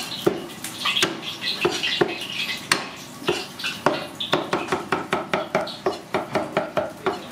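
Steel cleaver striking a wooden chopping block while mincing garlic. A few spaced knocks come first; from about four seconds in it settles into rapid, even chopping of about four strokes a second.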